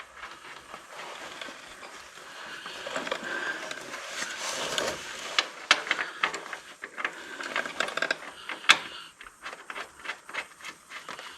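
Rustling with a run of sharp clicks and knocks, handling noises around the Gravely zero-turn mower's hydraulic oil fill while oil overflows.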